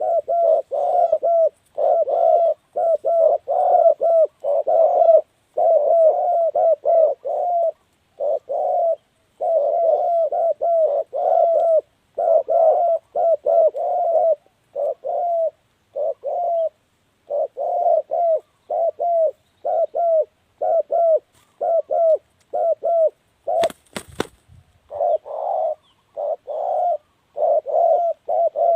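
Spotted doves cooing: low coos repeated in quick phrases, one after another with short gaps. About 24 seconds in, a few sharp knocks briefly cut across the calls.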